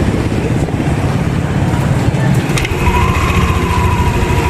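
Yamaha NMAX V2 scooter's single-cylinder engine idling steadily during idle speed control calibration, on a scooter whose fault was that it would not hold an idle.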